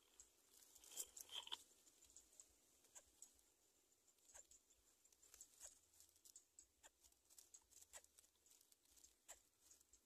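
Faint scattered clicks and rustles of dry nest grass as an adult greater coucal moves about on the nest over its chicks, with a louder cluster about a second in.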